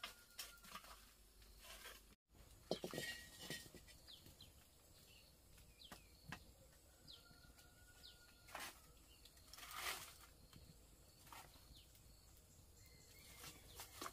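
Near silence: faint bird chirps with scattered light clicks and knocks.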